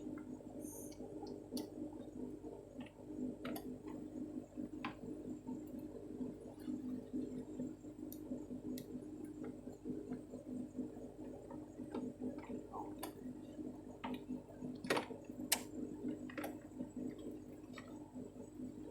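Steady hum of a running 1997 Toyota Camry with its air conditioning on, heard from inside the cabin, with scattered light clicks and taps of plastic trim and tools being handled under the dash.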